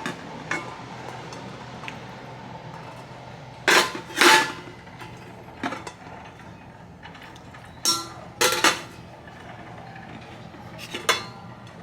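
Several short knocks and clatters, two pairs about half a second apart and then a single one, over a steady low room hum.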